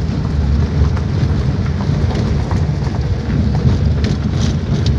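Car driving on a bumpy dirt road, heard from inside the cabin: a steady low rumble of tyres and suspension, with scattered clicks and knocks, most of them about four seconds in.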